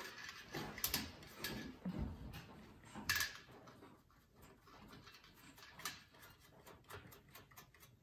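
Faint, irregular scratching and light taps of a paintbrush working paint across paper laid on a metal baking tray, with one louder tap about three seconds in.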